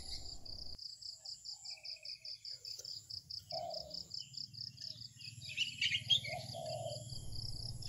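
Steady insect chirping, an even high pulse of about six a second, with scattered bird chirps over it, busiest around six seconds in.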